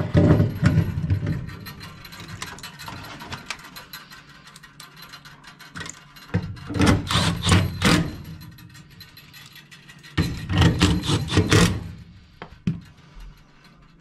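Cordless drill/driver running in three short bursts, about a second and a half each, driving screws into the furnace's sheet-metal burner assembly.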